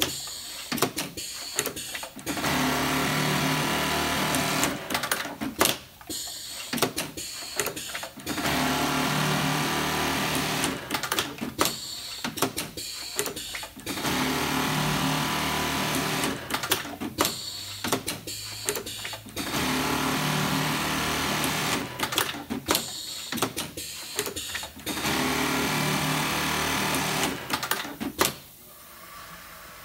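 Robeson NT-2210 programmable pattern sewer running in repeated cycles: five stretches of about two and a half seconds of steady high-speed stitching. Between them come clusters of sharp clicks and clacks as the clamp frame and the loader and stacker move the work in and out.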